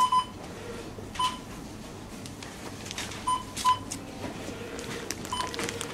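Short electronic beeps of a supermarket checkout barcode scanner, about six at irregular intervals, two in quick succession at the start, over low shop background noise.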